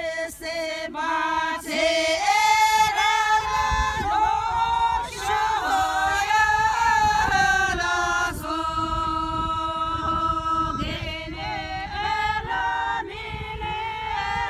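Singing: several voices in a song with long held notes.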